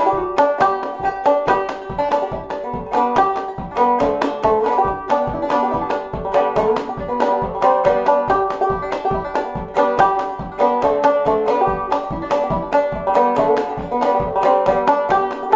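Five-string banjo played clawhammer style in open G tuning (gDGBD): a quick reel, with a steady stream of brisk plucked notes and the thumb's drone string.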